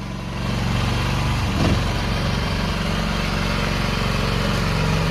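Mini skid steer's small engine running steadily, picking up a little about half a second in, with a short sound breaking in about a second and a half in.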